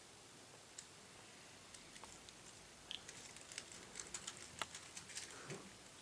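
Quiet room with faint rustling and a run of small, light clicks and ticks from about halfway in, as hands move over bedding and a sleeping person.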